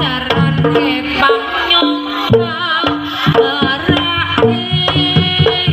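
Live Javanese jaranan ensemble music: kendang hand drums beat a quick, busy rhythm under steady held metallic tones, with a wavering high melody line on top.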